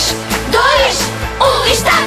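Upbeat children's song playing, with steady bass notes under high voices that swoop up and down.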